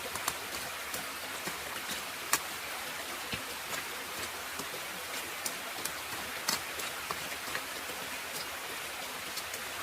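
Steady rain hiss with scattered sharp ticks of drops striking, the loudest a little after two seconds in and again about six and a half seconds in.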